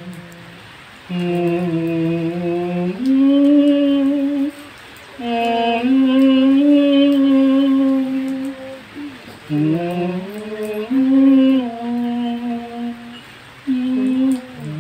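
A woman's voice chanting slowly in long held notes that slide up and down between pitches, in several phrases broken by short pauses for breath.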